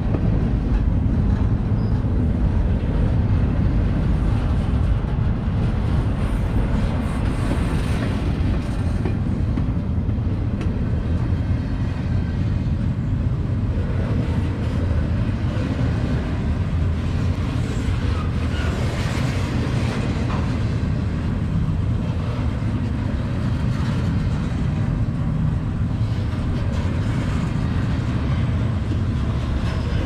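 Mostly empty double-stack intermodal well cars of a freight train rolling past: a steady low rumble of steel wheels on rail.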